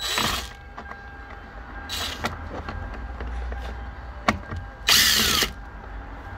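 Cordless drill/driver run in three short bursts, backing out the door-panel screws; the last and loudest burst is about five seconds in. A sharp click comes just before it.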